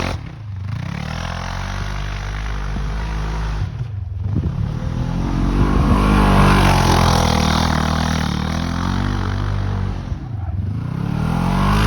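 Polaris RZR side-by-side engine revving up and easing off over and over as it is driven hard in snow in four-wheel drive. It drops back briefly three times, near the start, about four seconds in and near the end, and revs highest in the middle.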